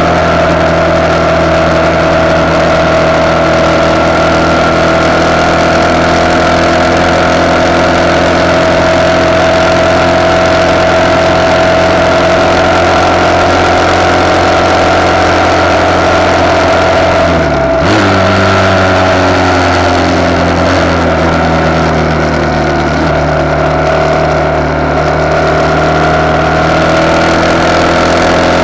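RPS Hawk 250's single-cylinder engine running under way through a de-catted CRF230 exhaust, heard from the handlebar. A little past halfway the engine pitch dips sharply and briefly, then sags slowly and climbs back near the end.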